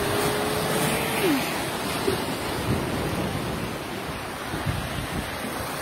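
Sea waves washing and breaking over shore rocks, a steady rush of surf. A brief held hum sounds over it for the first second and a half, dropping away at its end.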